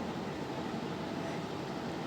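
Steady background noise: an even hiss and low rumble like room air or a fan, with no distinct events.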